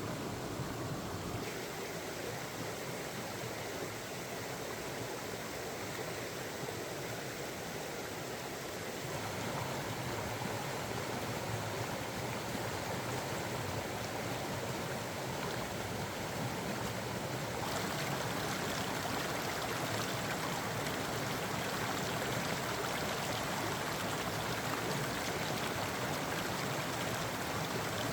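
Mountain stream flowing, a steady rush of water that grows fuller about a third of the way through and brighter again about two-thirds through.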